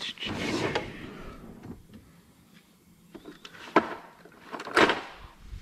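Metal tool-chest drawer sliding, then two sharp knocks about a second apart near the end.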